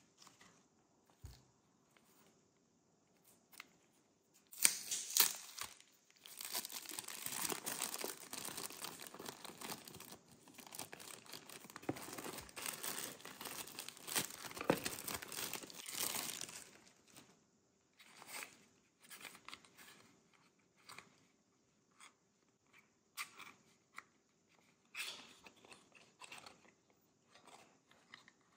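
Clear cellophane wrap crinkling and tearing as it is peeled off a small cardboard soap box: a dense crackle lasting about twelve seconds, starting about four seconds in. After it stops, scattered light taps and scrapes of fingers and nails handling the cardboard box.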